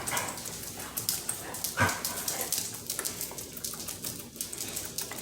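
Basset hound puppies playing: a few short yips and whimpers, the clearest about two seconds in, over many small clicks and scuffles.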